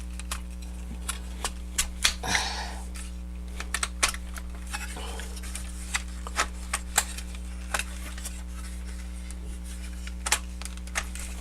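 Irregular sharp clicks and clacks of a plastic transforming robot figure's joints and parts being rotated and snapped into place by hand, over a steady low electrical hum.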